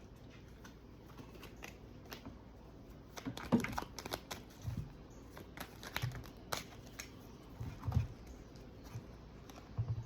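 Tarot cards being handled: a scatter of light clicks and rustles, busiest in the middle, with a few soft low thumps.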